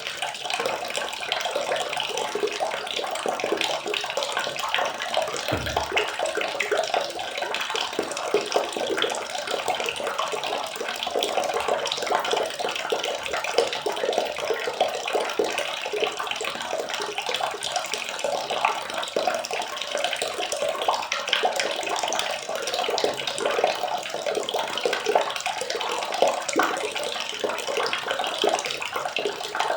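Water running and splashing steadily, a dense wash of tiny crackling splashes with no pauses.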